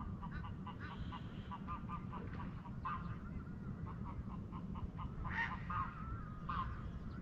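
Birds calling: a run of short, repeated calls, several a second, with a few louder calls about five to six seconds in, over a steady low rumble.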